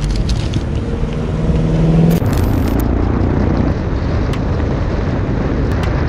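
A motorcycle engine idling with a steady low hum. About two seconds in it changes to a motorcycle being ridden along a road, engine and wind noise heard from the rider's helmet.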